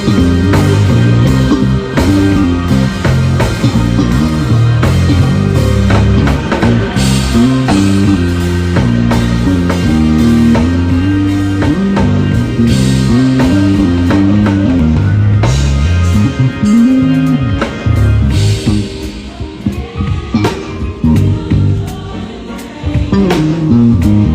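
Electric bass playing a moving line of low notes with a drum kit and cymbals as a live band plays. About 19 seconds in the band drops back to sparser bass notes and hits, then comes in full again near the end.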